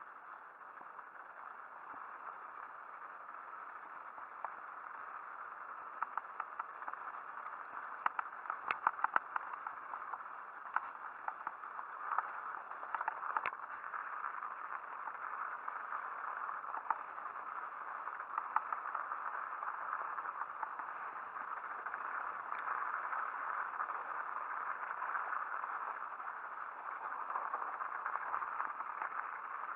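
Mountain bike riding over a snow-covered trail: a steady, muffled rush of tyres on snow with frequent rattling clicks from the bike, most frequent about a third of the way through.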